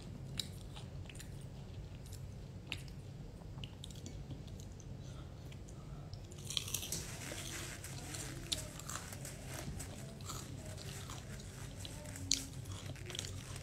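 A person biting into and chewing crispy flour-battered fried vegetables. The crunching crackles densely from about six seconds in, then goes on in scattered crunches, over a low steady hum.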